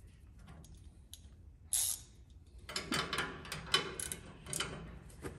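Bolts on a steel body-shell jig being loosened with a wrench: scattered metallic clicks and scrapes, faint at first and busier from about three seconds in.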